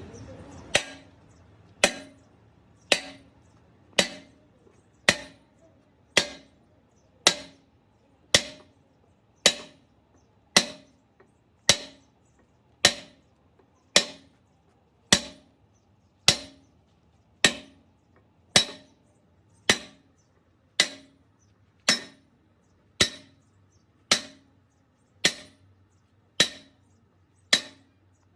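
A hammer striking metal in a steady rhythm, about one sharp blow a second, each blow ringing briefly.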